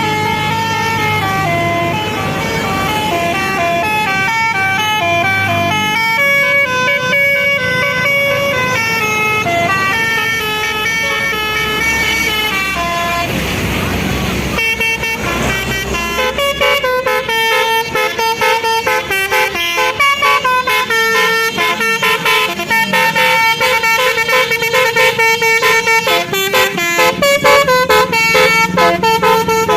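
Bus 'telolet' basuri horn, a set of roof-mounted trumpet horns, playing a tune of stepping notes. About halfway through there is a short rush of noise, and after it the notes come faster and pulsed.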